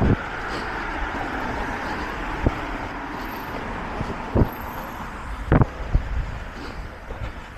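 Road traffic going by: a steady rush of car tyres and engines that fades a little toward the end, with a few irregular dull thumps.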